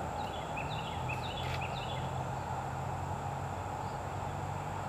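A bird gives a quick run of short chirps in the first two seconds, over a steady low hum.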